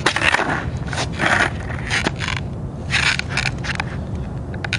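Skateboard wheels rolling on asphalt with a steady low rumble, broken by about four short scrapes.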